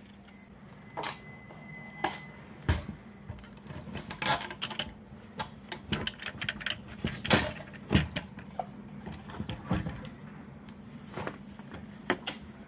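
Irregular plastic clicks and knocks as a Mitsubishi Colt fuel pump module is handled and lowered into the fuel tank opening, seated into its mount.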